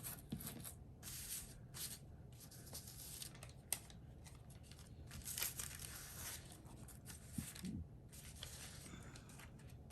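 Sheets of paper and thin paper-bag paper rustling and crinkling as they are handled and stacked, in short irregular bursts, with a couple of soft thumps near the end.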